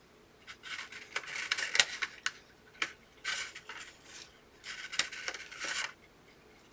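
A frosting utensil scraping and clicking as frosting is swiped across a cake in several short bursts, with sharp clicks among the scrapes.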